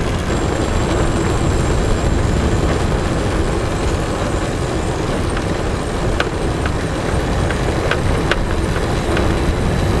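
Steady low rumble and rush of riding in a moving vehicle, with a few faint clicks along the way.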